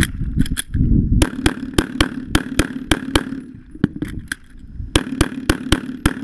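Pistol shots fired in quick strings: a rapid run of about ten shots starting about a second in, a pause of nearly two seconds, then another fast string of shots near the end.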